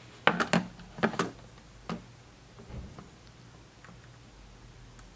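Sharp clicks and taps of an ESR meter's alligator-clip test leads being handled and clipped onto capacitor points on a circuit board: two quick clusters in the first second or so, a single click near two seconds, then a few lighter ticks.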